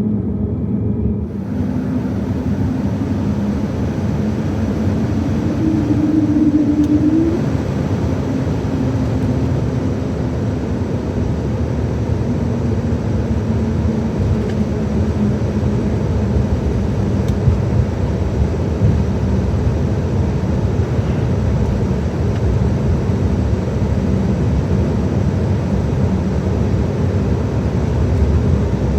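Cabin noise inside an Embraer 195-E2 on the ground: the Pratt & Whitney PW1900G geared turbofans run with a steady rumble and hum. A rushing hiss comes in about a second in and holds, and a brief higher tone sounds about six seconds in.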